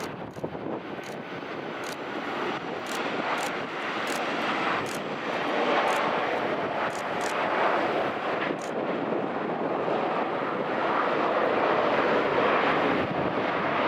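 Jet engines of a Boeing 737-800 airliner, a CFM56-7B pair, running with a steady roar that grows louder over the first few seconds and then holds.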